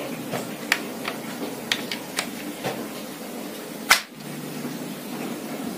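Air rifle parts clicking and tapping as they are fitted into place during reassembly: a string of short clicks, then a sharper snap about four seconds in as a part seats.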